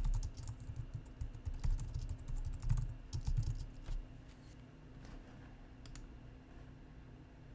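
Typing on a computer keyboard, a quick run of key clicks that stops after about four seconds, followed by two lone clicks.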